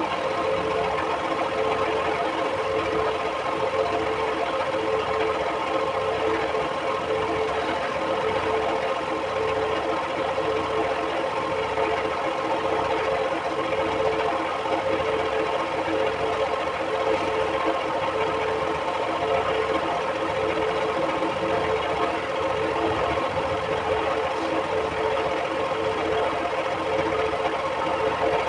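Piston air compressor running steadily with a regular chugging knock, pumping air through a hose into a tractor tyre.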